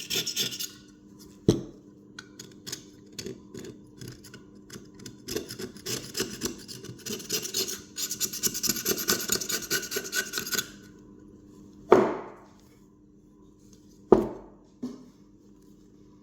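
A blade scraping old adhesive and foam residue off a car speaker's frame, in runs of quick rasping strokes. A few sharp knocks follow near the end.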